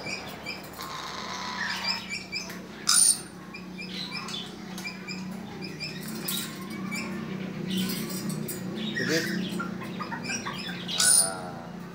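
Papuan lories (nuri parrots) flapping their wings and chirping, with two short loud bursts, one about three seconds in and one near the end.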